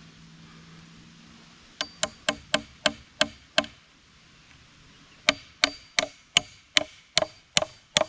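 An Estwing hatchet used as a hammer, driving a nail into wood. Two quick runs of sharp blows, about three a second: seven blows starting about two seconds in, then after a short pause eight more. Each blow has a brief metallic ring from the nail.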